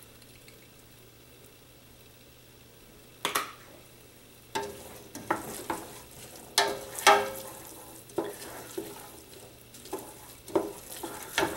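Wooden spoon stirring chopped onions and garlic sautéing in olive oil in a stainless steel pot. A faint sizzle runs throughout, and from about three seconds in the spoon knocks and scrapes against the pot again and again, each knock briefly ringing.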